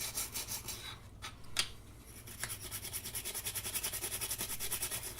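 Brisk scrubbing at a small part to clean off battery-acid corrosion. It starts about two seconds in with a few light clicks before it and goes in quick even strokes, about six a second.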